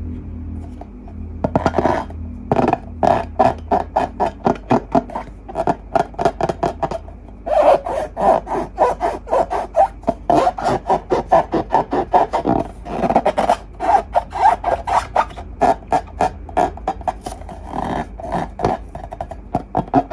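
Slime being squeezed and worked with rubber balloons by hand: quick, repeated short squishing and rubbing strokes, a few a second, starting about a second and a half in.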